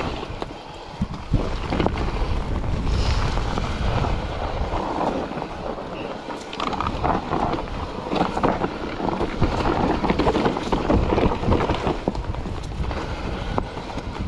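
Wind buffeting the microphone over the rumble of an electric mountain bike rolling fast down a dirt trail covered in dry leaves, with tyres crunching and the bike rattling and knocking over roots and bumps.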